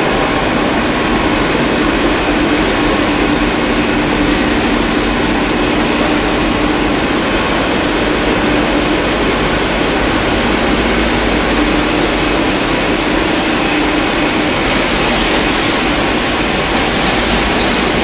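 Cable-making machinery running on a factory floor: a loud, steady mechanical noise with a faint hum, and a few sharp clicks near the end.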